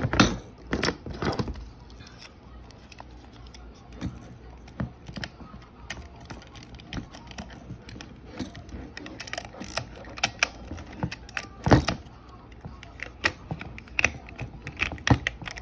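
Plastic body of a Fujifilm K-28 waterproof film camera being handled with its back open while film is loaded: irregular light clicks, taps and knocks. There is a sharp click at the very start and a louder one about three quarters of the way through.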